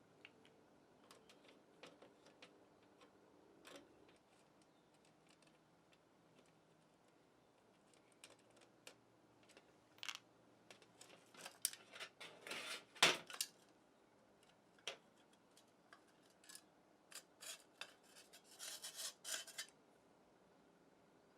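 Light metallic clinks, taps and scrapes of small metal parts and tools being handled, in scattered bursts that get busier partway through.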